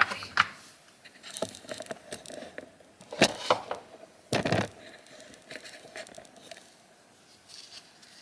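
Wax paper rustling and crinkling as it is handled, with a few short scrapes and knocks, the strongest a little past three and four seconds in. The paper is being lifted to check flowers being pressed in the microwave.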